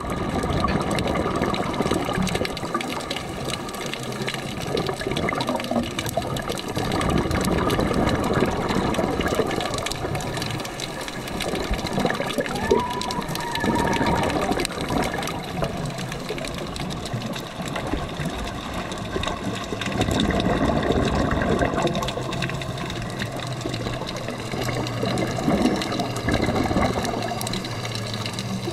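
Rushing, bubbling water heard underwater during a scuba dive, the sound of divers' breathing bubbles from their regulators, with a faint steady hum running underneath.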